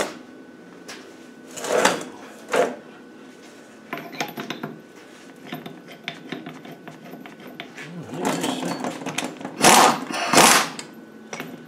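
Hand tools working a puller clamped on a manual gearbox mainshaft: scattered metal clicks and scrapes, short runs of rapid ticking in the middle, and two louder clatters about ten seconds in.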